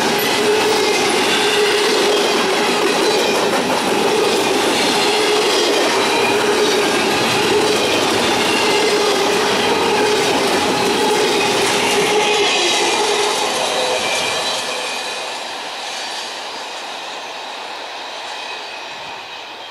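Freight cars of a double-stack intermodal train rolling past close by: steel wheels on the rails, with a few steady ringing tones over the noise. About fourteen seconds in the sound falls away as the end of the train pulls off into the distance.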